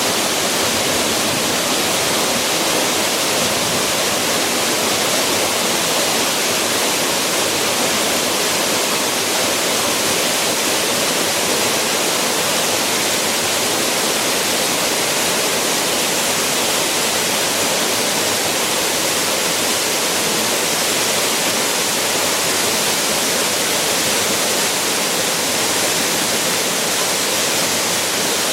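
Waterfall pouring steadily: a loud, even rush of falling water with no break or change.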